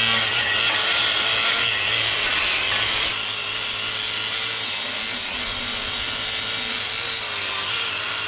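Angle grinder running under load against a rusty steel front suspension cross member, cleaning off rust and weld slag: a steady hissing grind over the motor's hum, whose pitch wavers as the pressure changes. It drops a little in level about three seconds in.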